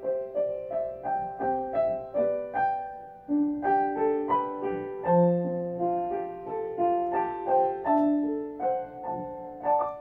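Outro music on piano: notes struck about three times a second, each dying away, with the last note left to ring out near the end.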